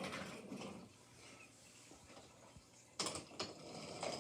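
Faint clicking and rattling of a small mechanism, quieter through the middle and starting up more strongly about three seconds in.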